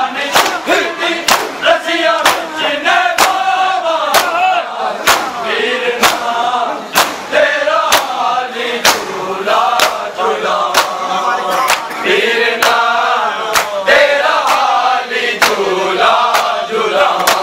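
A crowd of men chanting a Muharram lament in unison while beating their chests (matam). The sharp hand-on-chest slaps land together about once a second, keeping time with the chant.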